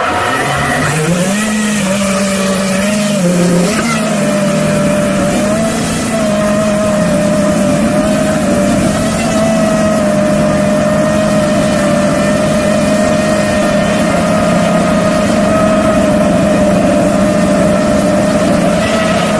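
FPV racing quadcopter's motors and propellers whining, heard up close from a camera mounted on the drone. The pitch rises about a second in as the drone throttles up, then holds fairly steady in flight.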